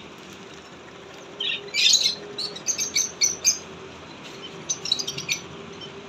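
Small birds chirping in two bouts of quick, short, high chirps, with a faint steady hum underneath.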